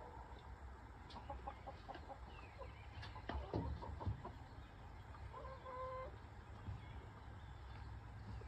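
Backyard chickens clucking softly, with a few short calls, and scattered sharp clicks and knocks, loudest about three and a half to four seconds in.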